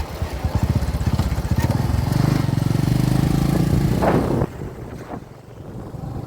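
An engine running close by with a fast, even pulse, getting louder partway through, then cutting off abruptly about four and a half seconds in.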